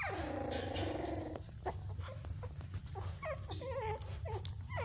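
Puppies whining: a long falling whine, then a run of short wavering squeaks about three seconds in, with light clicks of claws on a tile floor.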